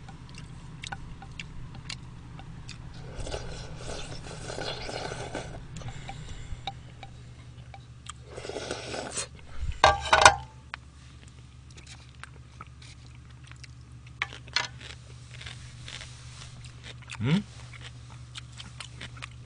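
Eating sounds close to the microphone: chopsticks clicking and scraping in a plastic bowl of jjajangmyeon, with chewing. A louder clatter about halfway through and a brief hum from the eater near the end.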